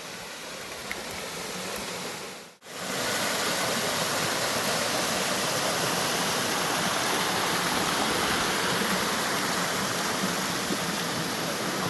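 Waterfall on a creek, falling water rushing steadily. There is a brief break about two and a half seconds in, after which the rushing is louder.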